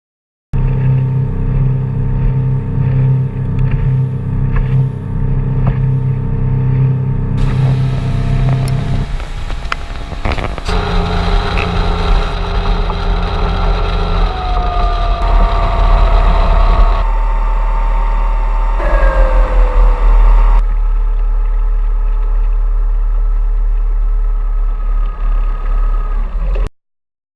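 A 2001 Chaparral boat's MerCruiser 3.0 four-cylinder sterndrive engine running, first at a steady low idle, then under way with the engine pitch shifting, including two falling whines. The sound changes abruptly several times and cuts off suddenly near the end.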